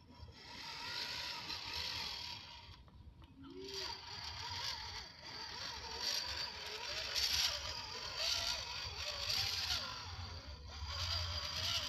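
Electric drive motor and gears of a homemade 4x4 1:10 scale RC Jeep whining as it crawls through mud, the pitch rising and falling with the throttle. It pauses briefly about three seconds in.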